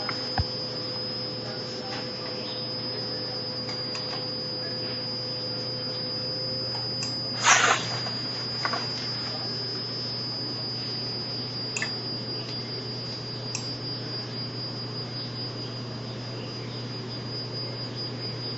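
Steady electrical hum with a thin high-pitched whine over it. A lower steady tone stops about seven and a half seconds in, at a short knock, the loudest sound, and a few faint clicks follow later.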